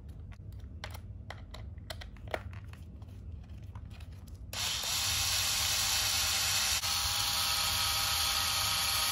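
Light clicks and taps of plastic parts being handled, then about four and a half seconds in a small electric screwdriver starts running steadily with a whine, driving a screw into the plastic center differential cover of an RC car.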